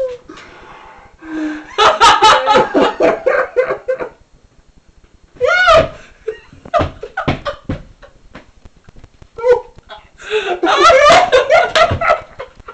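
A small group of men laughing in loud bursts, the biggest about two seconds in and again near the end, with a quieter stretch between.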